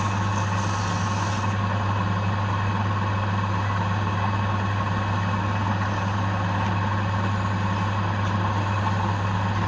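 Woodturning lathe running steadily: a constant low motor hum with a steady whine above it, and a brief hiss in the first second and a half.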